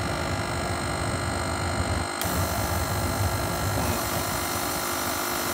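100 V diesel burner firing, its blower fan and flame making a steady whir and rush with a constant hum. About two seconds in the hiss jumps louder as the air supply is turned up.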